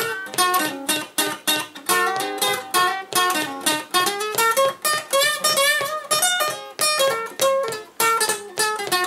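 Acoustic guitar strummed in a steady rhythm, about two to three strokes a second, with the chords changing as it goes.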